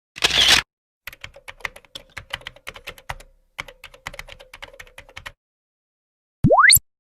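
Computer keyboard typing: a rapid, uneven run of key clicks lasting about four seconds, preceded by a short loud hiss. Near the end a single quick tone sweeps steeply upward in pitch.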